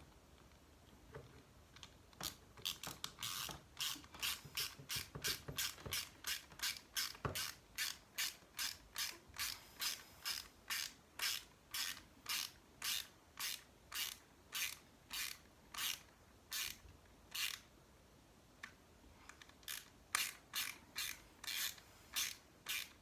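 Small screws being driven into the RC crawler's plastic chassis with a hand driver: a regular run of short, rasping ratchet-like clicks, about two a second. It stops for a moment near the end, then a few more strokes follow.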